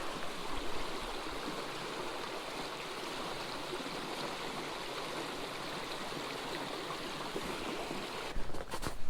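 Small creek's flowing water, a steady rushing babble. Near the end it cuts off suddenly and gives way to a few sharp knocks.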